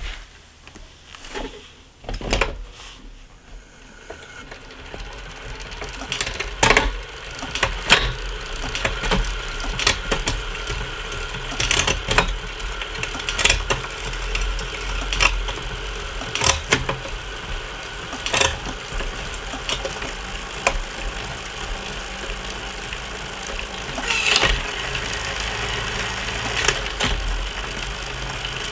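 Bicycle drivetrain spinning on a Wahoo direct-drive trainer, the chain running over a Shimano Ultegra 12-speed cassette, its hum building as pedalling gets going in the first few seconds. On top of it a SRAM AXS electronic rear derailleur shifts through the gears again and again, a sharp click or clunk about every one and a half to two seconds. This is a SRAM derailleur on a Shimano cassette, a pairing in which a few gears don't align properly.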